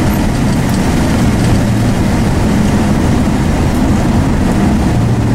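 1966 Dodge Dart GT's engine running steadily while the car cruises, heard from inside the cabin. Its low hum grows stronger and steadier near the end.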